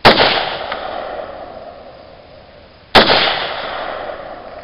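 Two rifle shots from an AR-15, about three seconds apart. Each is a sharp crack followed by a long echo that dies away over more than a second.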